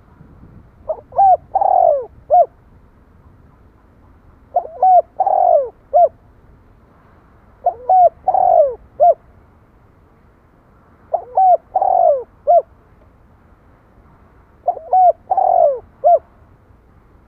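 Spotted dove cooing: five repeated phrases about three and a half seconds apart. Each phrase is two short coos, a longer falling coo, and one short final coo.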